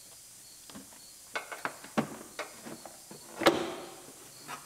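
Plastic airbox and intake tube of a 2012 Chevrolet Camaro SS being pulled loose by hand: a string of sharp plastic clicks and knocks, with one louder knock and a short scrape about three and a half seconds in.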